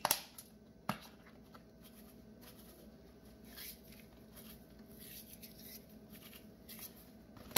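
Dried parsley flakes sprinkled and crumbled by hand over raw seasoned chicken wings: faint, scattered rustling, with two light taps in the first second.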